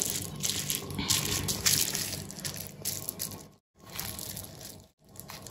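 Plastic bubble wrap coated in white chocolate crinkling and rustling as hands press and smooth it against the cake, with a steady run of fine crackles that cuts out briefly twice past the middle.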